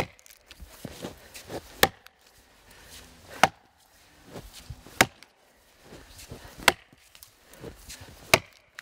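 Axe chopping into a log lying on the ground: six sharp strikes, about one and a half seconds apart, each knocking chips out of a widening notch.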